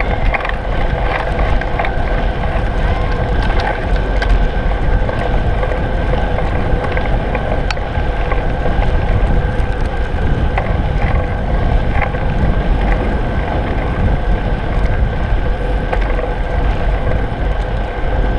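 Road bicycle riding on wet pavement, heard from a camera mounted on the bike: steady wind buffeting on the microphone and road rumble with tyre hiss, a faint steady whine and scattered small rattles.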